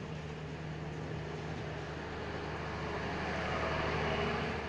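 Passenger coaches of a diesel express train rolling past on the rails, a steady rumble and hum that swells as the last coach goes by about four seconds in, then begins to fade.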